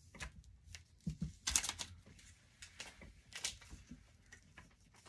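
A stack of glossy trading cards being handled and slid one off another, giving an irregular series of short swishes and light clicks.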